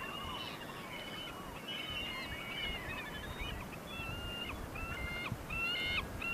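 A flock of birds calling over one another: many short, repeated, pitched calls, some arching or dropping in pitch, growing louder and denser near the end.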